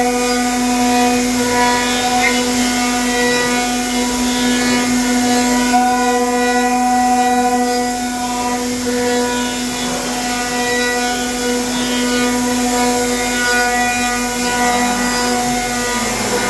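CNC router spindle running at a steady high speed while milling a walnut gun stock, a constant whine with overtones that shift as the cutter load changes; near the end a lower tone drops in pitch.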